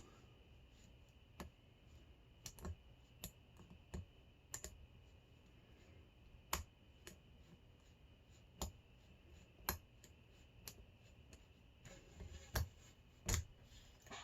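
Lock picks working in a Hurd padlock's keyway: scattered small, irregular clicks and ticks of the pick and tension wrench against the pins and plug, with a few sharper, louder clicks in the second half.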